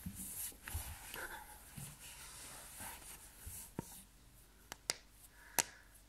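Clothes rustling as a body shifts, then four short sharp pops in the last two seconds, the loudest about five and a half seconds in: joints cracking.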